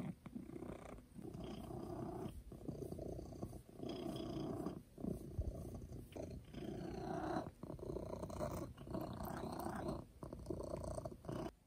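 Domestic cat purring on a lap while being stroked, the purr breaking briefly between breaths about once a second.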